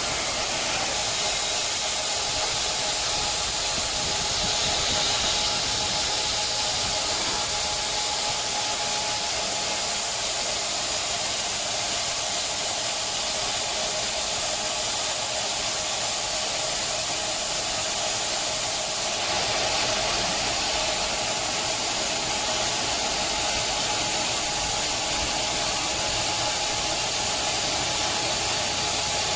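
CNC metal-cutting band saw running, a steady hiss with a faint steady hum.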